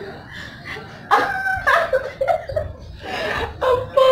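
People laughing in several bursts, starting about a second in.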